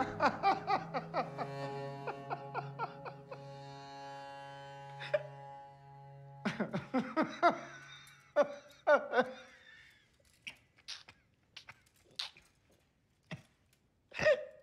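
Music of struck, ringing notes, repeating and slowing over a low held tone, then fading away. A man's stifled laughter breaks in about six and a half seconds in, goes on as quiet breathy snickers, and returns as a short laugh near the end.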